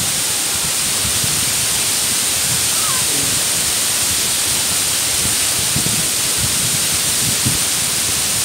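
Mumlava waterfall pouring into its plunge pool: a steady, even rush of falling water.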